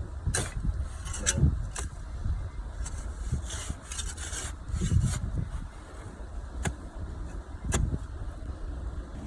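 Post hole digger blades cutting and scraping soil from the side of a post hole, with several sharp knocks as the blades strike the ground, to shave the hole over.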